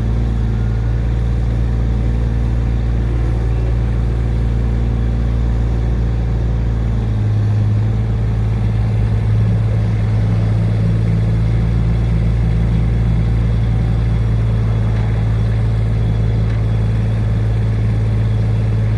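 Diesel engine of a piece of construction equipment running steadily, with a low, even hum.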